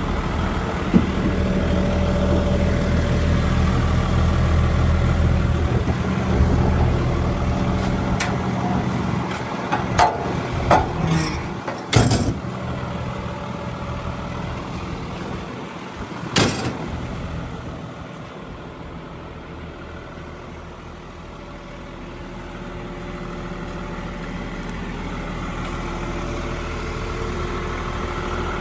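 Volvo EW180C wheeled excavator's diesel engine running steadily, with a handful of sharp metallic knocks and clunks around the middle. The engine sound then falls off for a few seconds before building again.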